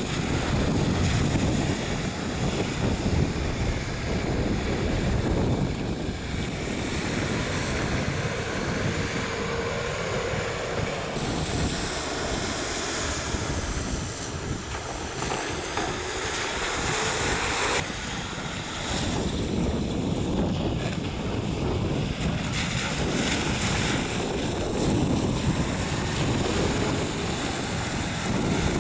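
Hyundai Terracan 4x4 engine running as the SUV drives through shallow water and wet sand, its tyres splashing, with wind rushing over the microphone. The level rises and falls in slow swells.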